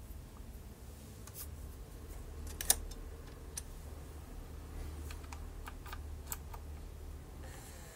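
Scattered sharp clicks and taps from handling the Technics SL-5 turntable's controls while switching it from 45 to 33 1/3 rpm, the loudest about two to three seconds in, over a low steady hum.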